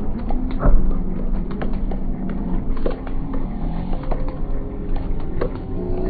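Fireworks going off as a string of sharp pops and crackles, with a louder bang about a second in, over a steady low hum.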